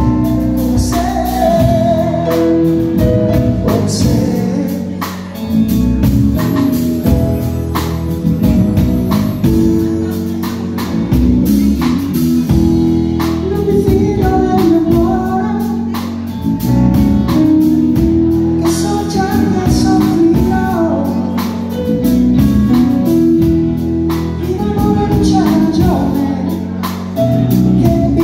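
A live pop band playing a song: a male singer with electric guitar, bass guitar, keyboard and drums, the drums marking a steady beat.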